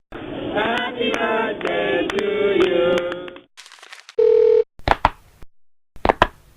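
A string of short separate sound clips: about three seconds of several voices with a thin, cut-off sound, then a brief steady beep, then a few sharp clicks.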